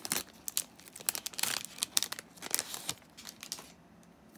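Foil booster pack wrapper crinkling and tearing as it is pulled open, a run of crackles that stops about three and a half seconds in.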